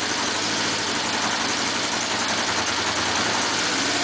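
Honda CB 500 Four K1's air-cooled inline four-cylinder engine running steadily at idle on a little choke, on its first start.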